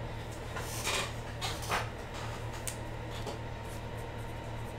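Two short rustling scrapes, about a second in and again a little later, then a light click, as objects are handled on a desk; a steady low hum runs underneath.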